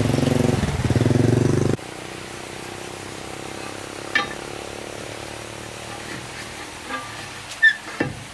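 An engine runs loudly with a steady rhythmic drone for under two seconds and cuts off abruptly. A quieter steady hum follows, broken by a few sharp clinks, the loudest near the end.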